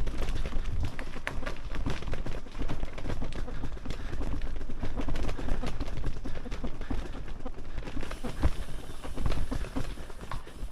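A loaded touring bicycle moving over a rough surface: a dense, irregular rattle and clatter of bike and luggage over a steady low rumble of wind on the microphone.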